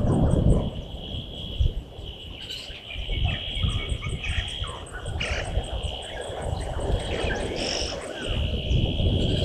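Bush ambience: a steady high insect drone, scattered short bird chirps and calls, and an uneven low rumble underneath.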